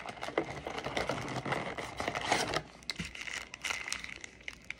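Crinkling and rustling of packaging as a Panini Select basketball mega box is opened and its card packs are pulled out. Dense crackling for the first couple of seconds, then thinning to scattered light ticks.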